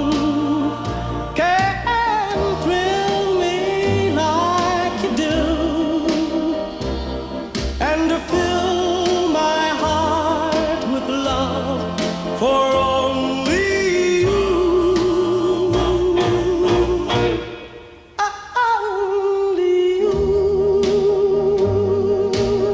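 Background music: a song with a sung melody over a steady bass and beat, briefly dropping away about three-quarters of the way through.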